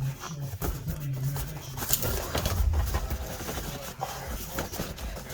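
Cardboard box and packaging being handled and opened by hand, with scattered taps, scrapes and rustles.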